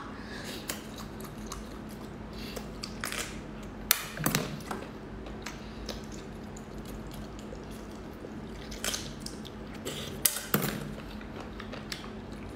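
Mouth sounds of eating small marinated shellfish off a skewer: wet slurping, sucking and chewing in short bursts, loudest about four seconds in and again around ten seconds, over a faint steady hum.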